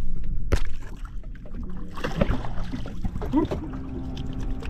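Water sloshing against the side of a flats boat as a spotted seatrout is released by hand, over wind rumbling on the microphone. It is loudest in the first second, with a sharp knock about half a second in, then settles to a lower steady rumble with brief faint voices.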